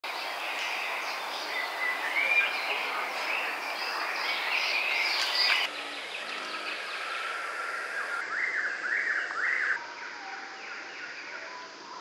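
Background of wild songbirds chirping and calling, busy through the first half. The ambience changes abruptly at a splice about halfway through, and a quick series of short rising-and-falling chirps follows.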